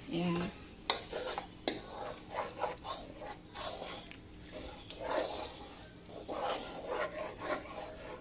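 Wooden spatula scraping and stirring around a nonstick wok through a thick chilli sauce, in repeated irregular rasping strokes.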